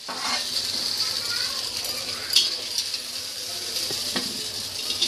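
Hot oil sizzling in a steel kadhai as fried besan gatte, browned and done, are lifted out with a slotted metal skimmer. A few sharp clinks of the skimmer against the pan come through the sizzle.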